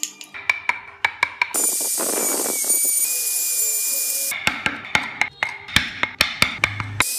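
Chisel being struck into a wooden block in a run of sharp knocks, then an electric drill running steadily with a high whine as it bores into the wood for about three seconds, then more quick chisel knocks, and the drill starting again at the very end.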